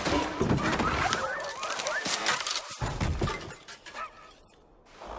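Sled dogs yelping and whining in short, sliding squeals over the crunch and rush of a dog team ploughing and tumbling through deep snow. The sound dies away about four seconds in.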